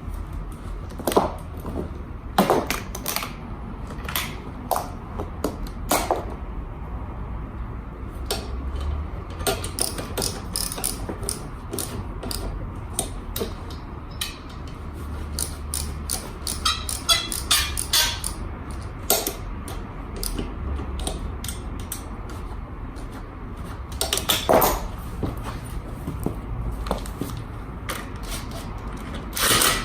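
Irregular clicks, knocks and clanks of hand tools and metal parts during scooter repair work, with a low steady hum underneath.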